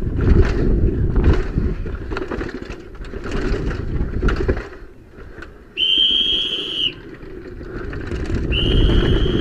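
Helmet-camera rumble and rattle of a downhill mountain bike riding fast over concrete paths and steps, dropping away briefly about five seconds in. Twice, about six seconds in and again near the end, a long, high, steady whistle-like tone sounds for about a second.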